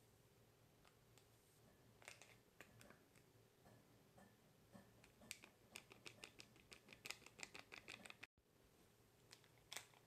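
Faint crinkling of packaging and pattering of dry sugar and baking powder poured into a glass bowl of flour: scattered small ticks, thickening into a rapid run of ticks for a few seconds, which breaks off suddenly, then a couple more ticks near the end.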